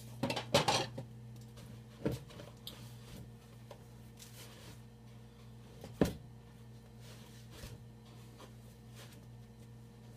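Kitchen handling noises while chicken is coated in breadcrumbs in a small bowl: a short rustling clatter near the start, a click about two seconds in, and one sharp knock about six seconds in, over a steady low hum.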